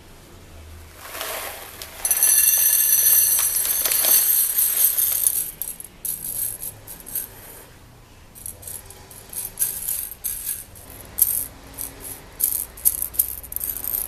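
Dried azuki beans poured onto a ceramic plate: a dense, loud rattle for about three and a half seconds, starting about two seconds in. Then scattered clicks and small rattles as fingers spread and sort the hard beans on the plate.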